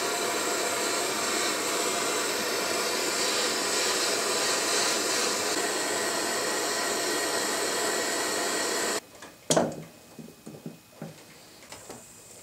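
Handheld gas torch burning with a steady hiss as its flame heats a soldered copper pipe elbow joint. About nine seconds in the hiss cuts off suddenly, followed by a sharp knock and a few lighter knocks.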